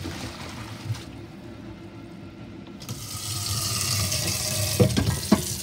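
Blanched mustard greens and their cooking water poured into a metal colander. About three seconds in, a kitchen tap starts running into an empty stainless steel pot, with a few metal knocks near the end.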